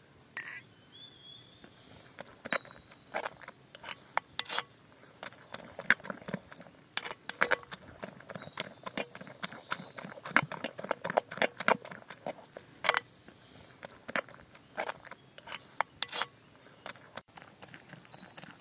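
Metal spoon stirring and beating a thick egg batter in a plastic bowl: quick, irregular clicks and scrapes of the spoon against the bowl, densest in the middle.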